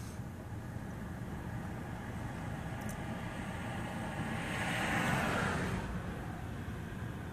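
Steady road and tyre noise of a car driving, heard from inside its cabin, with another vehicle passing close alongside: a swell that builds about four seconds in and fades by six.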